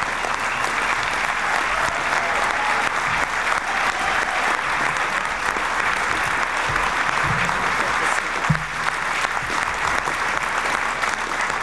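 Large audience applauding, a dense, steady clatter of many hands clapping, with a brief dull thump about eight and a half seconds in.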